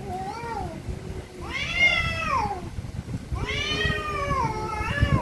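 Two cats in a face-to-face standoff yowling at each other: a short call, then two long drawn-out wails that rise and fall in pitch, the last one wavering. Angry, aggressive caterwauling of a cat confrontation.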